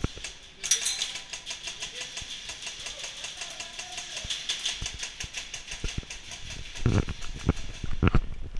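Airsoft gun firing a long full-auto burst: a rapid, even rattle of shots, about eight a second, that runs for roughly six seconds and then stops. A few heavy thumps follow near the end.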